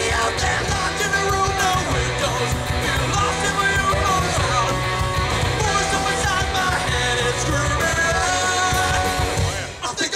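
A live rock band with a male lead singer singing and shouting over electric guitar, bass and drums. The music drops back for a moment near the end.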